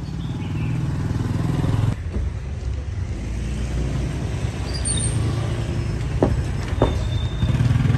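Street traffic: engines of road vehicles running close by, a steady low rumble that swells near the end, with two short sharp sounds about half a second apart a little after six seconds in.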